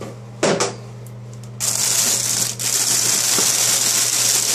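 Thin polyethylene bag crinkling loudly as headphones are handled inside it, starting about one and a half seconds in, after a brief knock about half a second in. A steady low hum runs underneath.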